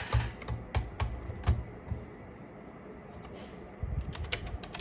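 Logitech K480 wireless keyboard keys clicking as they are typed on: a quick run of key presses over the first two seconds, a pause, then another short run near the end.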